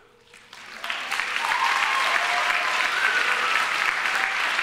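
Audience applauding, starting quietly and swelling to full, steady clapping within the first second.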